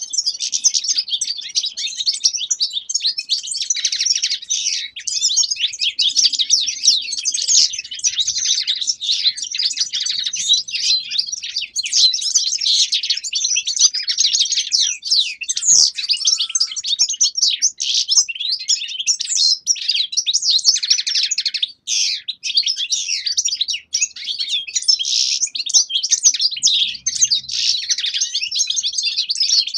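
Several caged finches, European goldfinches among them, singing together: a dense, continuous twittering chorus of fast, high chirps and trills.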